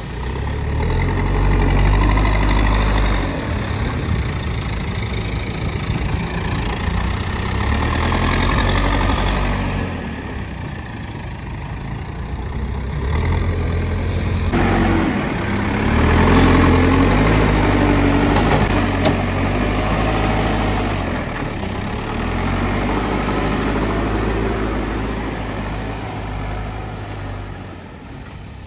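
Backhoe loader's diesel engine running, revving up and easing off several times as the machine works.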